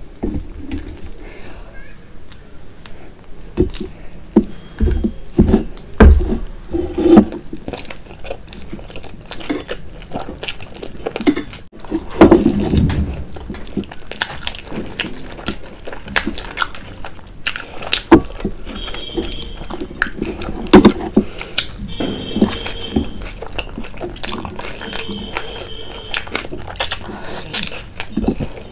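Close-up eating sounds: biting into and chewing a soft malai chaap roll soaked in creamy green sauce, with wet mouth noises and many sharp clicks.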